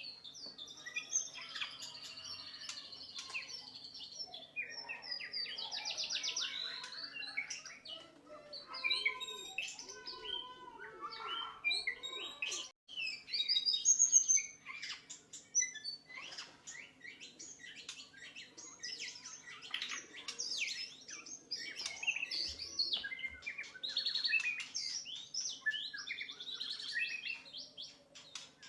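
White-rumped shama singing a long, varied song of clear whistles, rapid trills and gliding notes, the phrases following each other almost without a break, loudest about halfway through. A steady low hum runs beneath.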